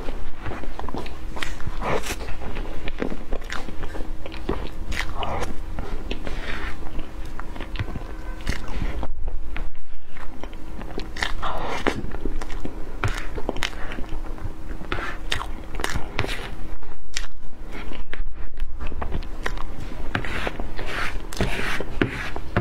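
Close-miked chewing of soft cream cake, with many short, wet mouth clicks throughout.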